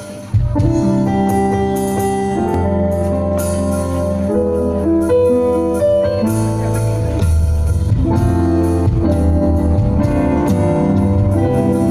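Live worship band playing an instrumental passage on keyboards, electric guitar and an electronic drum kit: held chords over a steady drum beat. After a brief dip at the very start, the full band comes in about a third of a second in.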